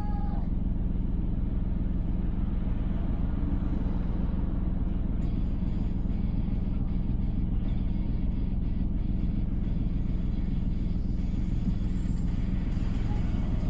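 Car driving along a road: steady low rumble of engine and tyres, with faint music ending just at the start and coming back in near the end.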